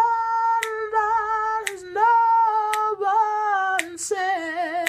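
A man singing unaccompanied in a high voice, holding long notes with a slight waver and stepping lower in pitch near the end, while snapping his fingers about once a second to keep time.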